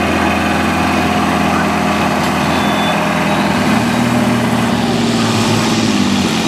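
Diesel engine of a modified pulling tractor running at the start line, then revving up about four seconds in, the pitch rising as it puts out thick black smoke ahead of the pull.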